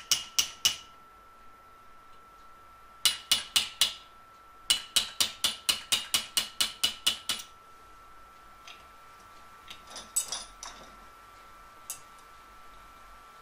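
Hammer striking a steel dapping punch into copper sheet clamped in a vise, punching dents: quick runs of light ringing metal taps, about five a second, broken by short pauses, then only a few scattered taps in the second half.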